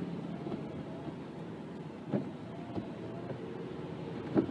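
Steady hum inside a car stopped at a railroad crossing, with a faint steady tone and two sharp knocks about two seconds apart.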